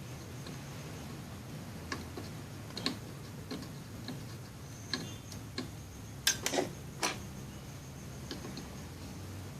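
Light, irregular clicks and taps of small tools and parts being handled on an electronics workbench, with a quick cluster of louder clicks about six to seven seconds in, over a steady low hum.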